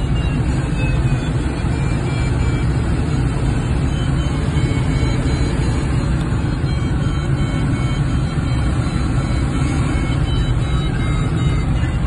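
Steady rush of airflow heard inside the cockpit of a Schweizer SGS 2-33 training glider in flight, with faint short high beeping tones coming and going.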